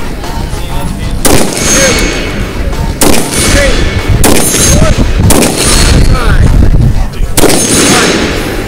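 AR-15-style rifle fired from the prone position: five single shots spaced one to two seconds apart, each ringing out briefly.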